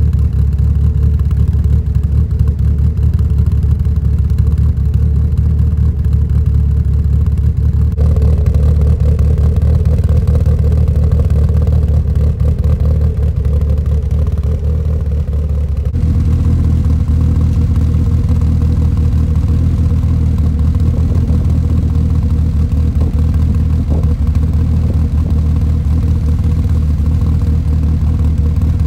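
1998 Mitsubishi Eclipse GST's turbocharged 4G63 four-cylinder engine, fitted with Kelford 272 camshafts, idling steadily after a cold start, heard close to its exhaust tip. The tone shifts slightly about eight seconds in and again about sixteen seconds in.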